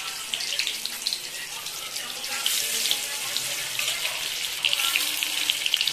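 Battered pumpkin flowers deep-frying in hot oil in a kadai: a steady crackling sizzle that swells about two and a half seconds in and again near the end.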